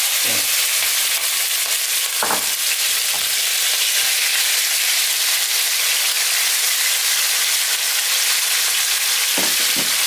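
Raw chicken pieces sizzling steadily in hot olive oil in a nonstick pan, just added and starting to sear. A few knocks of a silicone spatula stirring the pieces, one about two seconds in and two near the end.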